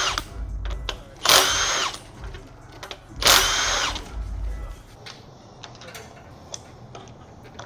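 Cordless power tool spinning in short bursts of about half a second, a couple of seconds apart, each with a high whine, as bolts are run out of the GT350 Voodoo V8's timing components. Light clicks and handling noise follow in the second half.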